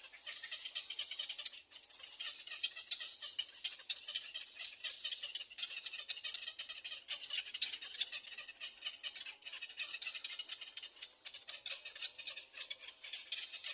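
Little egret nestlings' begging chatter: a dense, continuous rattle of rapid high-pitched clicks, briefly dipping about two seconds in.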